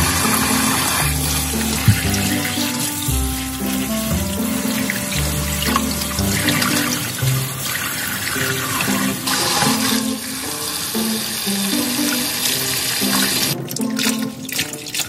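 Kitchen tap water running and splashing onto boiled gondre greens in a stainless steel colander in the sink as they are rinsed in cold water. The flow stops near the end, leaving a few drips and splashes.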